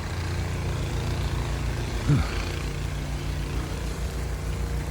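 A vehicle engine running steadily with a low hum. About two seconds in, a short sound drops quickly in pitch.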